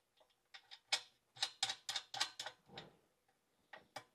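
Light metallic clicks and taps of hex nuts being put on and threaded by hand onto the bolts of a bearing flange on a Koenders windmill compressor, a quick irregular run of them in the first part and a few faint ones near the end.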